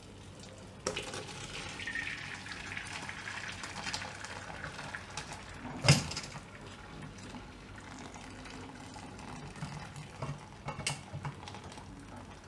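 Whey pouring from a steel pot through a cotton cloth as freshly split milk is strained to separate the paneer, a steady splashing trickle that fades after the first half. A sharp metal knock about six seconds in and a lighter clink near the end come from the pot against the strainer.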